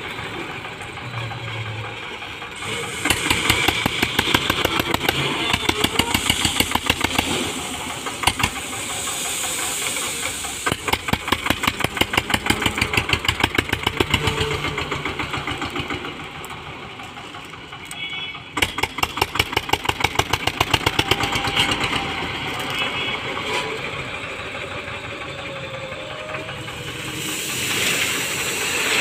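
Eicher 242 tractor's diesel engine chugging, revving up several times and settling back as the front loader works a gravel heap. Near the end, gravel pours out of the loader bucket into a trolley with a hiss over the engine.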